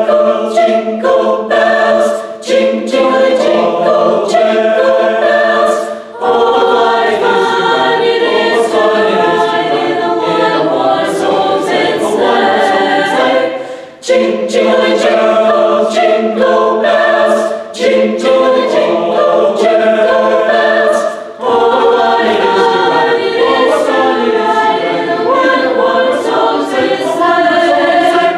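Mixed chamber choir of teenage voices singing a cappella, sustained chords in several parts. The phrases run about seven seconds each, with a brief breath break between them.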